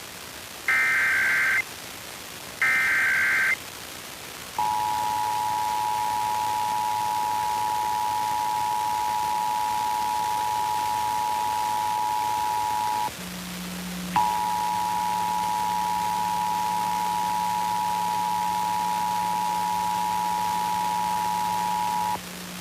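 Emergency Alert System required monthly test: the last of the three short data bursts of the SAME header, then the two-tone attention signal from about four and a half seconds in. It is a steady dual-tone beep that breaks off for about a second midway and then resumes for about eight more seconds, with a low hum coming in at the break and running under it.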